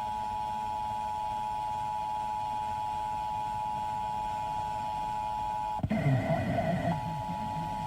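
Emergency Alert System attention signal: the steady two-tone alarm (853 and 960 Hz sounded together) carried over broadcast radio. About six seconds in the tone drops out for about a second under a louder, muffled voice-like sound, then resumes.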